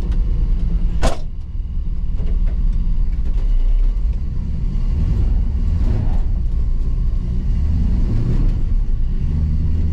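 Chevy square-body pickup's throttle-body-injected 350 V8 running, heard from inside the cab as the truck moves off, the rumble swelling and easing. There is a sharp clunk about a second in.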